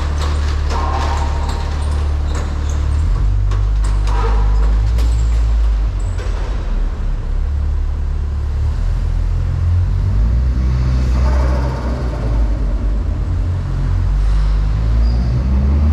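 Volkswagen Golf R (Mk6) turbocharged four-cylinder engine and exhaust droning at low pitch while driving, the note shifting about three seconds in. A few sharp clicks sound in the first few seconds.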